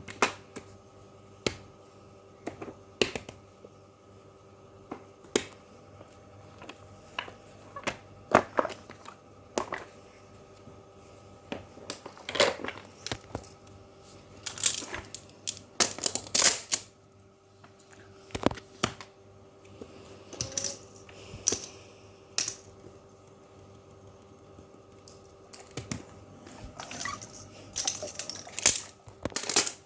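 Fidget toys handled by hand: irregular sharp clicks and taps, with scratchy rustling bursts of about half a second each, over a faint steady hum.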